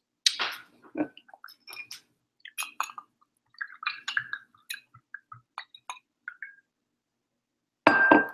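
Scattered small clicks and taps of dishes and utensils being handled on a table, with a louder clink that rings briefly near the end.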